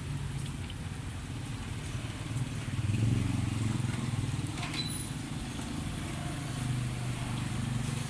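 Street traffic: vehicle engines running past, swelling about three seconds in.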